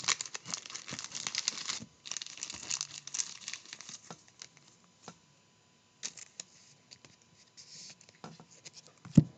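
Crinkling wrapping and trading cards being handled. It is dense for about the first four seconds, then thins to scattered light clicks and taps, with a single soft thump near the end.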